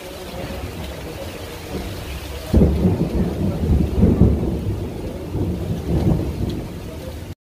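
Heavy storm rain with strong wind: a steady hiss of rain, then, about two and a half seconds in, a loud, uneven low rumble that goes on until the sound cuts off suddenly near the end.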